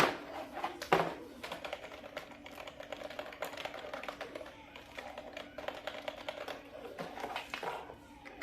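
Keys of an HP K6533 wired USB keyboard being typed on in a rapid, uneven run of clicks, with two louder knocks at the start and about a second in; the typing stops near the end.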